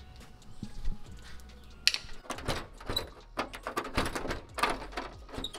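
Hood pin hardware and a screwdriver being worked on a car hood: quiet at first, then from about two seconds in a fast, irregular run of metal clicks, rattles and scrapes as the pin and its ring clip are worked loose.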